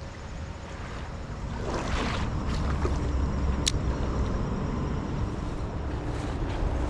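Wind rumbling on the microphone, with a few sharp clicks, the clearest about three and a half seconds in.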